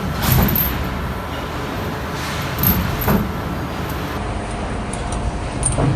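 Heavy machinery running with a steady low rumble, broken by four sharp knocks: about a third of a second in, twice close together near the middle, and once near the end.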